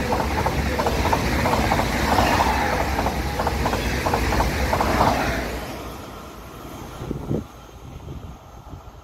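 Train passing at speed close by, its wheels clicking rapidly over the rail joints, then fading away after about five seconds. A short knock about seven seconds in.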